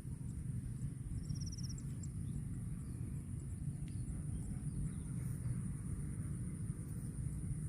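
Outdoor rural background: a steady low rumble with a continuous high, thin insect drone over it and a brief chirping trill about a second in. No mooing.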